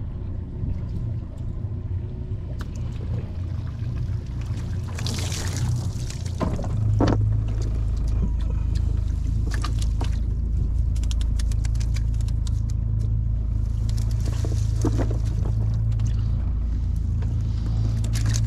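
Shrimp cast net being hauled in and lifted out of the water, with water pouring and dripping off the mesh in two rushes and scattered small ticks. A steady low rumble runs underneath and grows louder about seven seconds in.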